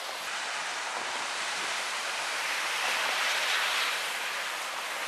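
Traffic on a rain-wet street: car tyres hissing on the wet asphalt, swelling as a car passes about three to four seconds in and then easing off.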